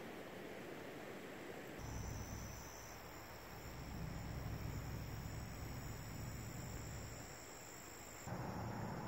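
Outdoor ambience of insects trilling steadily at a high, even pitch, starting about two seconds in, over a low rumble.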